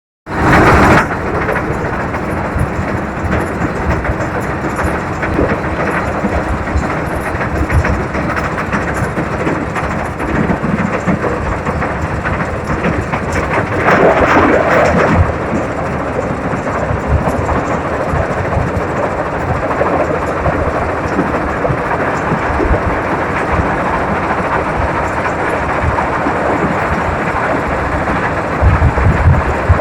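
Engine of a heavy earth-moving machine running steadily, with a louder stretch about halfway through.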